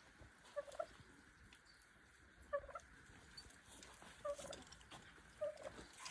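Faint short bird calls, four of them a second or two apart.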